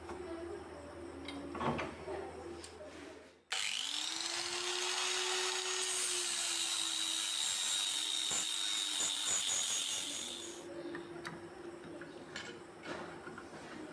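An electric power tool's motor starts about three seconds in with a quickly rising whine and runs at steady speed. A rougher hiss joins from about halfway to ten seconds in as it works the steel, and then the whine fades as the tool winds down.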